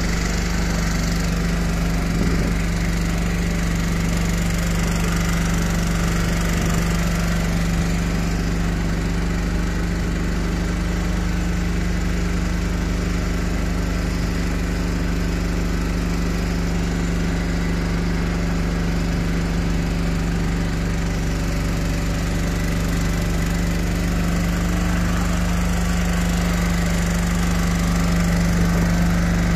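An engine running steadily at constant speed, a continuous drone with a strong low hum, growing slightly louder near the end.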